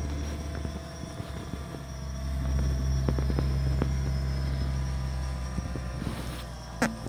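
Steady hum of a DJI Phantom 3 quadcopter's propellers at a distance, over a low steady rumble, with a few faint clicks.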